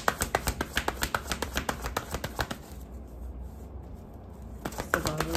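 A deck of tarot cards being shuffled by hand: a quick run of card flicks, several a second, that stops after about two and a half seconds and starts again near the end.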